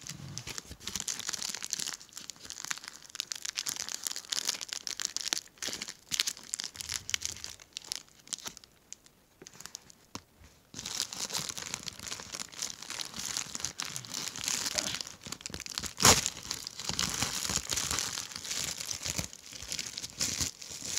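White plastic mailer crinkling and tearing as it is handled and opened by hand, with a quieter pause of about two seconds near the middle. About three-quarters of the way through there is one sharp loud crack, the loudest sound.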